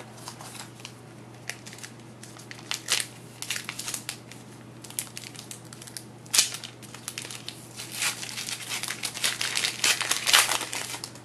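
A trading card pack's wrapper being torn open and crumpled by hand: irregular crackling and crinkling, busiest in the last few seconds.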